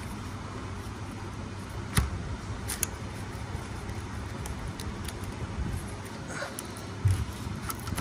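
A few short, sharp clicks and knocks, the loudest a low knock near the end, over a steady low background rumble.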